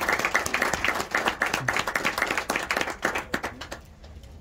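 A small group of people applauding, with many hands clapping unevenly; the clapping thins out and dies away near the end.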